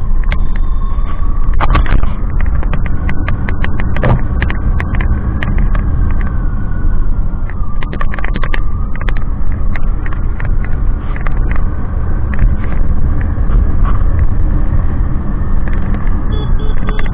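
Motorcycle on the move, a heavy rumble of engine, road and wind on the microphone, with frequent sharp clicks and knocks and a faint whine that rises and falls.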